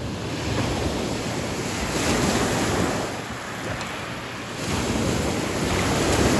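Small ocean waves washing onto a sandy beach, the surf swelling about two seconds in and again near the end.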